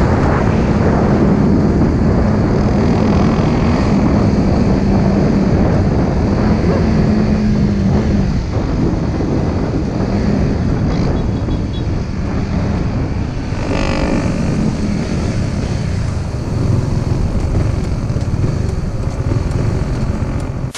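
Honda Supra GTR 150 Fi single-cylinder motorcycle engine and wind rush on the helmet-mounted microphone as the bike slows from speed. It goes from a steady engine note to a lower, softer running sound, with a brief pitched sound about two-thirds of the way through.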